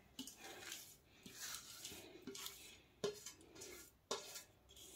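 Faint scraping and rustling as fingers push ghee-fried melon seeds off a tilted steel plate into a wok, with light knocks of steel about three and four seconds in.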